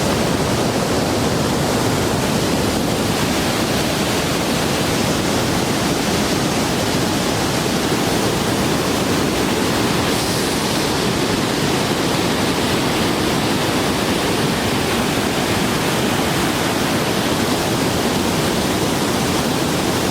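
Steady, loud rushing of a waterfall's falling water, with no breaks.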